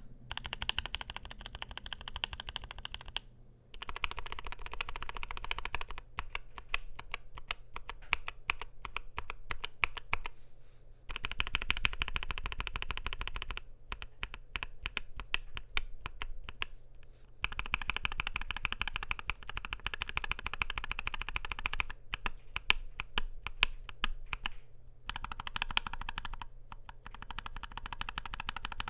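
Continuous fast typing on a NuPhy Air60 V2 low-profile mechanical keyboard with Gateron Low-profile 2.0 Red linear switches, aluminium plate and PBT low-profile keycaps: rapid key clacks in bursts of a few seconds, with brief pauses between them.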